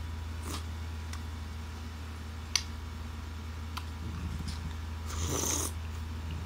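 Close-up mouth and spoon sounds of someone eating a creamy fruit salad: soft chewing, a few faint clicks and one sharp tick of the metal spoon about two and a half seconds in, and a short breathy rush of noise about five seconds in. A steady low hum runs underneath.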